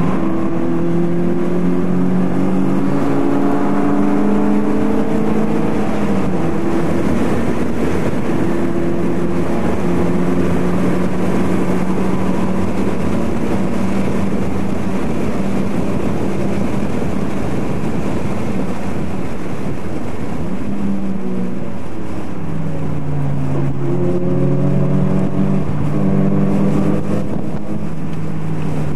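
Car engine heard from inside the cabin at racing pace on a track, its pitch climbing and dropping with throttle and gear changes and holding steady for several seconds in the middle, over constant road and wind noise.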